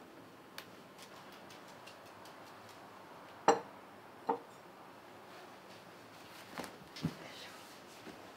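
Tableware on a wooden table: a few sharp, separate clinks and knocks as bowls, a cup and spoons are set down and handled. The two loudest come about halfway through, close together, and softer ones follow near the end.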